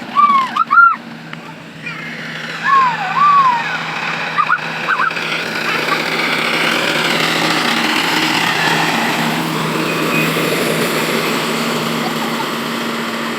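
Rice combine harvester engine running with a steady low hum that grows louder after about five seconds. Over the first five seconds, several short, high-pitched, arching calls sound, louder than the engine.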